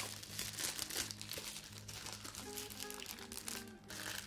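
Soft white packaging wrap crinkling and rustling as it is pulled off a small camera by hand, over background music with sustained low notes.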